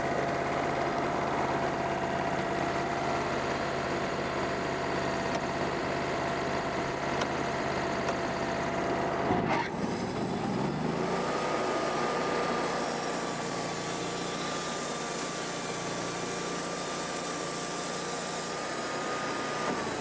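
Wood-Mizer portable band sawmill's engine running steadily. About halfway through there is a brief knock, and the engine speeds up over a second to a higher steady pitch, holding there until it begins to drop back at the very end.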